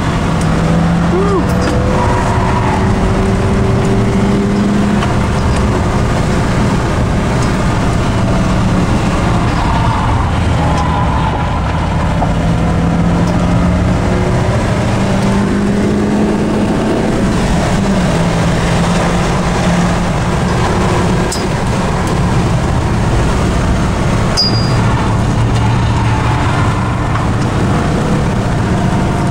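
A car's engine and road noise heard from inside the cabin on a fast track lap, the engine note rising and dropping several times as it accelerates and eases off.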